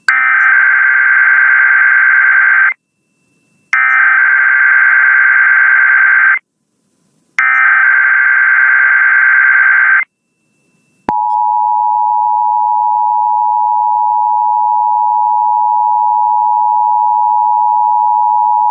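Emergency Alert System SAME header: three bursts of warbling digital data tones, each just under three seconds with about a second's gap between. About eleven seconds in comes the steady two-tone EAS attention signal (853 and 960 Hz), marking the start of an alert broadcast, here a required monthly test.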